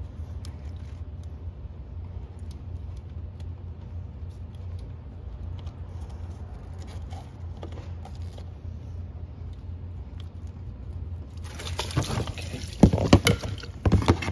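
Hand work in a car's engine bay: faint clicks and small knocks of tools over a steady low hum, then from near the end a loud burst of rustling, clattering and sharp knocks.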